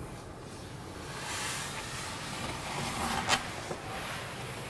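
Rustling handling noise of cushions and boards being moved, with one sharp click about three seconds in.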